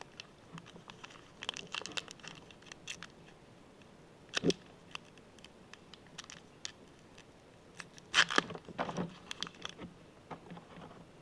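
Trading card packs being handled and torn open: plastic pack wrappers crinkling and tearing in scattered bursts, the loudest a sharp one about four and a half seconds in and a cluster about eight seconds in.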